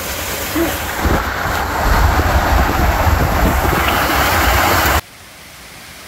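Small mountain stream rushing over mossy boulders: a steady rush of water with a deep rumble under it. It cuts off suddenly about five seconds in, leaving a much quieter forest background.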